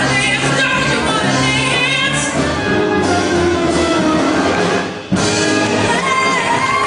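Singing over instrumental backing music. The sound drops away briefly about five seconds in, then comes straight back.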